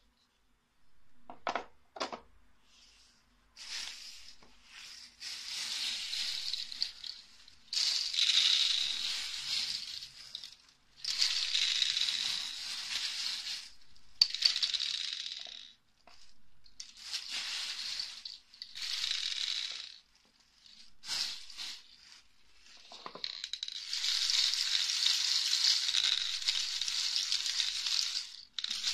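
Empty capsules rattling and sliding over a clear acrylic capsule-loading tray as it is shaken back and forth, in repeated spells of a few seconds, to settle them into the tray's 100 holes. Two sharp plastic knocks come near the start.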